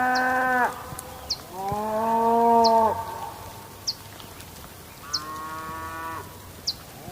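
Cattle mooing: four long, drawn-out moos, the third fainter. Short high chirps repeat about every second and a half, over a steady hiss of rain.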